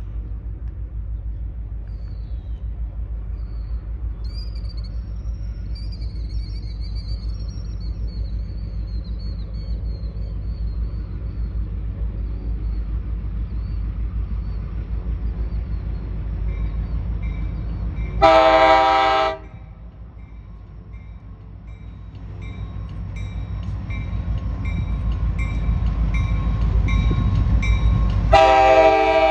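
Diesel freight locomotives approaching slowly, their low engine rumble building over the last several seconds. The multi-tone air horn sounds one short blast about eighteen seconds in and starts a second, longer blast near the end; birds chirp for a few seconds near the start.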